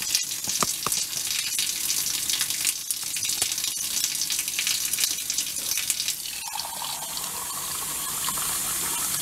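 Chrome sink faucet running a steady stream of hot water. About two-thirds through, the stream starts landing in a mug held beneath it, adding a filling tone that rises slightly as the mug fills.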